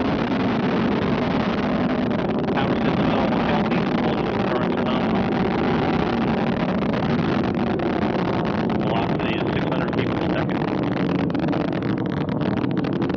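Steady, loud noise of the Antares rocket's twin AJ26 first-stage engines climbing away during ascent, with crackling from about halfway in.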